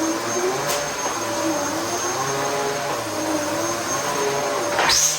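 Dyson DC14 upright vacuum cleaner running, a steady high motor whine over a rush of airflow whose lower tones waver up and down as the load on the cleaner head changes. A short click about a second in, and a quick rising whine just before the end.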